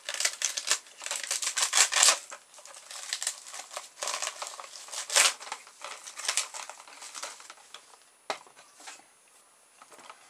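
Plastic toy packaging being crinkled and pulled open by hand: a dense run of crackles and rustles, louder about two and five seconds in, thinning out after about eight seconds.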